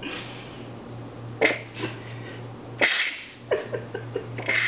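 Ninja Foodi pressure cooker's release valve venting steam during a quick pressure release: short hissing spurts about one and a half and three seconds in, then a longer hiss starting near the end.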